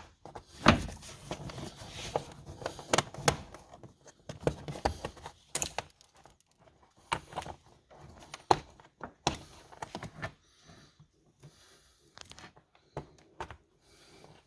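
Plastic interior door panel of a 2008 Kia Sorento being handled and worked back onto the door: irregular sharp clicks and knocks with rubbing and scraping between them. The loudest knock comes about a second in.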